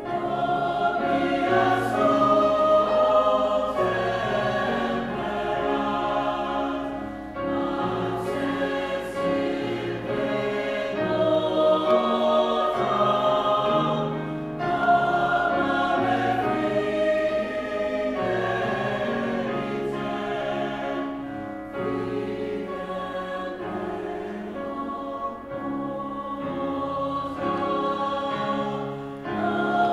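Mixed choir of women's and men's voices singing a slow choral anthem in long, sustained phrases about seven seconds each, with grand piano accompaniment.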